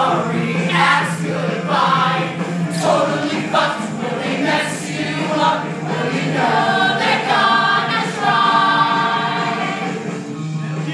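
A stage cast singing together in chorus over musical accompaniment, a full-voiced ensemble number.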